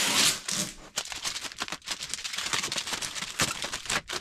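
Clear plastic packaging wrap crinkling as it is pulled off, with blue tape being peeled away: a dense, irregular run of small crackles.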